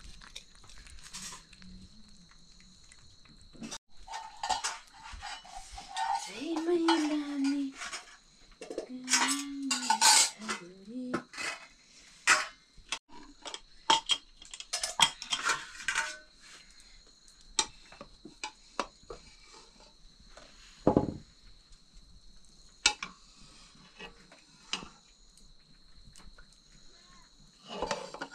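Dishes and cooking utensils clinking, knocking and scraping in a run of separate strikes, busiest through the first half. Two short wavering low calls sound over them about six and nine seconds in.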